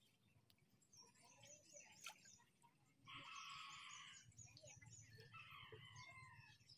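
Faint birdsong: quick high chirps repeated in runs, with a louder, longer call about three seconds in and another about five seconds in.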